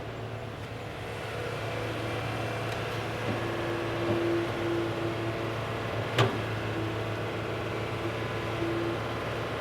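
Small electric motors of a radio-controlled construction model running with a steady hum, a higher whine cutting in and out from about three seconds in, and one sharp click about six seconds in.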